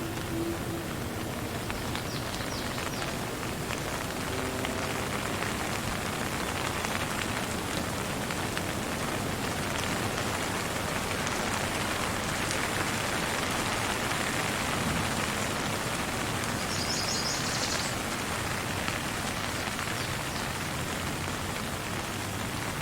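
Steady rain falling, with the fine ticks of individual drops, swelling slightly midway. A short burst of high rapid ticking sounds about three-quarters of the way through.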